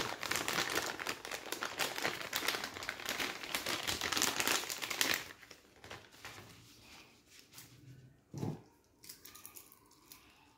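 Thin clear plastic bag crinkling as a wristwatch is pulled out of it, loud for about five seconds, then dropping to faint rustles and light clicks, with a short low thump about eight and a half seconds in.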